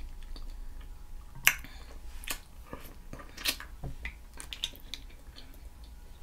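Close-miked eating sounds: a person chewing food with scattered wet mouth clicks and smacks, the sharpest about one and a half seconds in.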